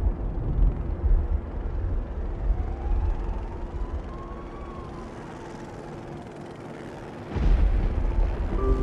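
Deep, low rumble that eases off in the middle and swells back suddenly near the end, under a steady low hum. A faint distant siren wails up and down once in the middle.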